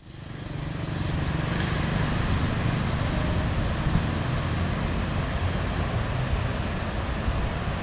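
Steady low engine rumble under a hiss of outdoor noise, fading in over the first second.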